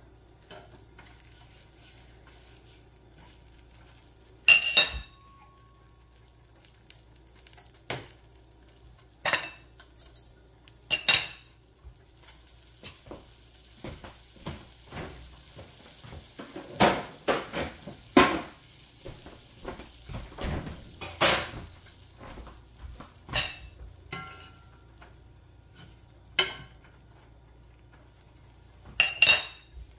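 Kitchen dishes and metal utensils clinking and knocking in a run of separate sharp strikes, the loudest about four seconds in and near the end, with a soft hiss for several seconds in the middle.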